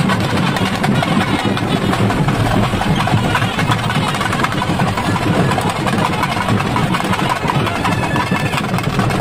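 A loud engine idling steadily, with no change in speed.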